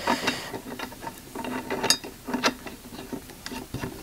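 Scattered small metallic clicks and rubbing as a lock nut is fitted and turned by hand onto a blade mounting in an Autoprop H6 propeller hub, the sharpest click about two seconds in.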